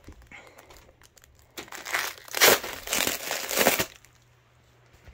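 Clear plastic wrap on a vacuum-packed, rolled mattress crinkling and rustling as it is handled. It is faint at first, then loud and crackly for about two seconds in the middle, then it stops.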